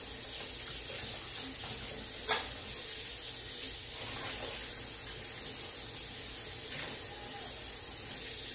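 Kitchen tap running steadily into the sink as dishwater fills, with one sharp knock a little over two seconds in.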